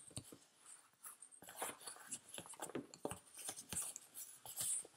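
Linen cloth and a stiff sheet being handled: irregular rustling, scraping and soft clicks as a stitched fabric piece is pulled out and unfolded.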